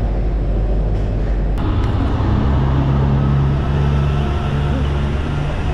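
Engines of airport ground vehicles running on the apron, a steady low hum with an apron bus close by. The sound changes abruptly about one and a half seconds in.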